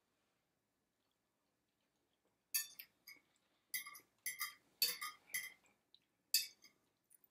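Metal forks clinking and scraping against dishes in a run of short, sharp clinks, starting about two and a half seconds in and stopping near the end.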